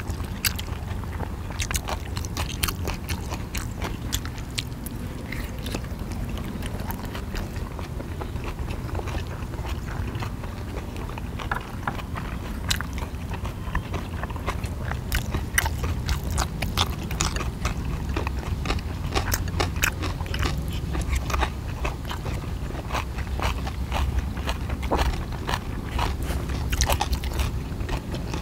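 Close-miked eating: two people biting into and chewing soft dumplings, with many small sharp clicks of chopsticks against each other and the dishes.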